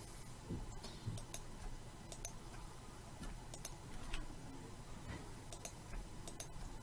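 Faint, scattered single clicks of a computer mouse and keyboard as vertices are Shift-clicked and the F key is pressed, about a dozen clicks at uneven intervals.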